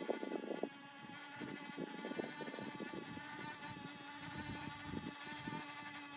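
Small electric motor of an RC construction model whining steadily, with gear and track noise crackling underneath.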